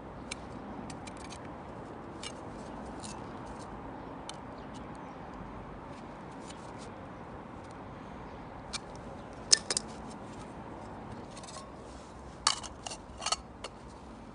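Wood campfire crackling: scattered sharp pops over a steady low hiss, with the loudest pops in a cluster about halfway through and another near the end.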